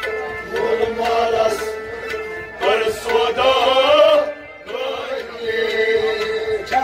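Kashmiri Sufi song: a male voice singing over a steady harmonium drone.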